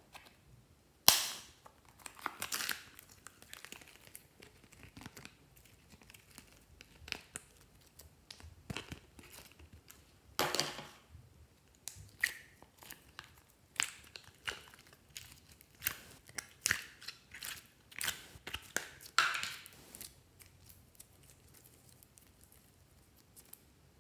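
A thin plastic slime container being opened and handled: a sharp snap about a second in, then scattered clicks and crinkling crackles of the plastic as slime is pulled out of it.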